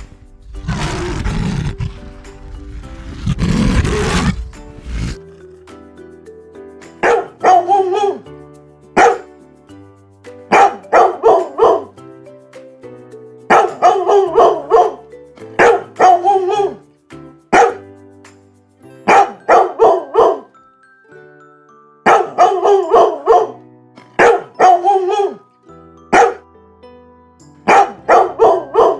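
Two long, rough roars in the first few seconds, followed by a dog barking in quick runs of several barks, over steady background music.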